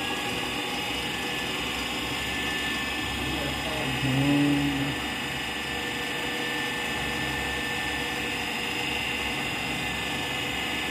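Belt-driven dynamic balancing machine spinning a turbocharger rotor at steady speed, a constant high whine, while it measures how far the rotor is out of balance. A brief low hum cuts in about four seconds in.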